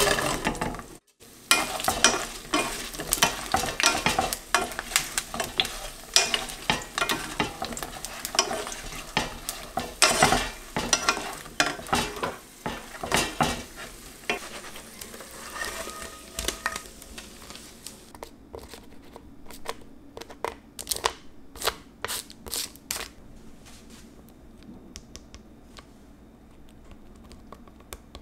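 Fried sweet potato slices sizzling in hot oil and melted sugar in a frying pan, stirred with a wooden spoon that clicks and scrapes against the pan as the slices are coated in the syrup. After about 18 seconds the sizzling drops away, leaving scattered clicks and taps.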